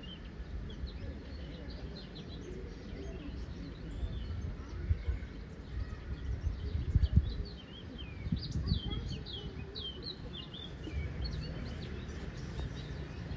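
Birds chirping in quick, short, high notes, busiest in the middle, with a few low thumps, the loudest about seven seconds in.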